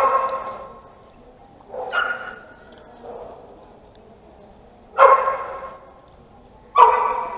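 A dog barking in single barks a few seconds apart: one about two seconds in, a fainter one soon after, and louder ones about five seconds in and near the end.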